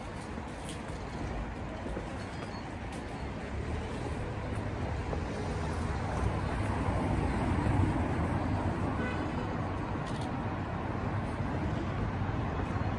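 Street traffic noise: a steady rumble of passing vehicles, growing louder around the middle.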